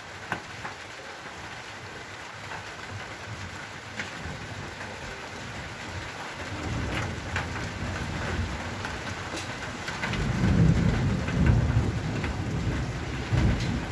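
Steady rain with drops ticking on a hard surface, and a low rumble of thunder that builds about halfway through and is loudest near the end.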